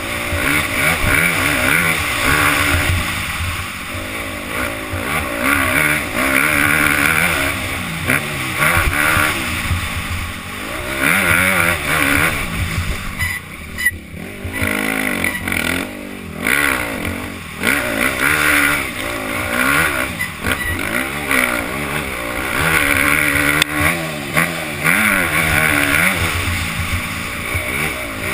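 Motocross bike engine under hard riding, its revs repeatedly climbing and dropping as the throttle is opened and rolled off. About halfway through it briefly goes quieter twice. Heard from the rider's helmet.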